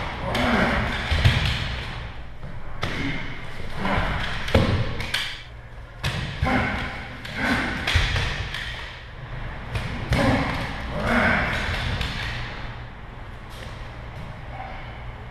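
Thumps and knocks from a close-quarters rifle-disarm drill: several sharp impacts a few seconds apart, with scuffling between them.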